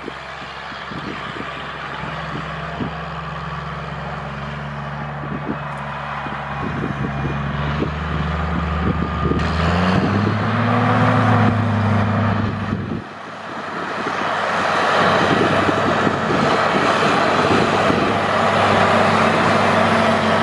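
New Holland Versatile 9684 four-wheel-drive tractor's big diesel engine working under load while pulling a ripper. Its note climbs and grows louder about halfway through. It drops off suddenly about two-thirds of the way in, then carries on strongly.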